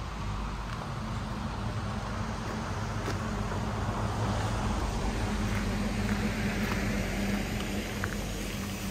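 A nearby road vehicle's engine running as a steady low hum that swells a little past the middle and eases near the end, over general street noise.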